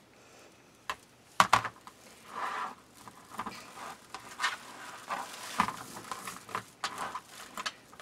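Deco mesh rustling and crinkling as it is gathered and handled over a wire wreath frame, with a couple of sharp clicks about one and a half seconds in.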